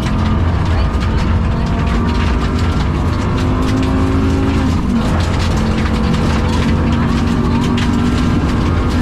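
Rally car engine running hard under load, heard from inside the cabin, with a continuous low rumble and engine pitch drifting up and down as the car is driven. Scattered sharp ticks and rattles run through it. The car is running with a bad misfire and is down on power.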